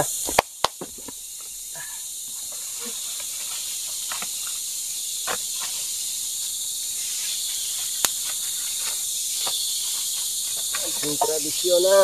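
A steady, high-pitched chorus of tropical forest insects, with two sharp clicks about half a second in and faint scattered ticks.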